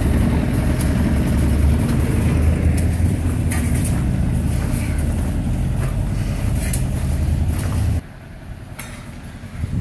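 Van-mounted soot-extraction vacuum unit running with a steady, loud, low machine rumble. About eight seconds in it drops sharply to a much fainter hum.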